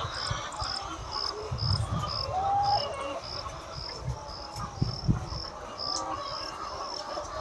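A cricket chirping in a steady rhythm, about two high chirps a second, with an occasional short hen call and uneven low rumbling underneath.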